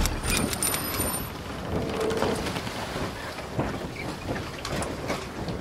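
Intro sound effect: a continuous noisy wash, full of scattered irregular clicks and crackles, with a brief high sparkle about a second in.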